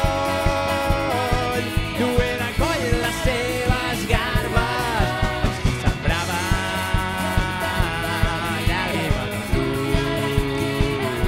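Live band playing: a drum kit keeping a steady beat under electric guitar and keyboard, with a held melody line that bends and slides in pitch.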